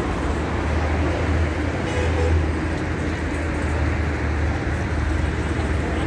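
Steady traffic noise from a busy multi-lane highway below, cars and buses running, with a deep low rumble.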